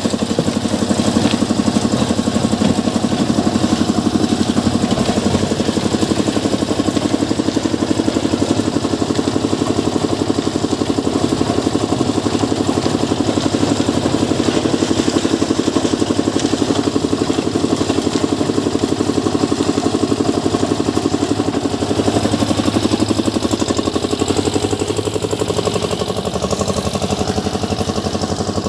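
Engine of a drum concrete mixer running steadily with a fast, even chugging pulse, a little quieter near the end.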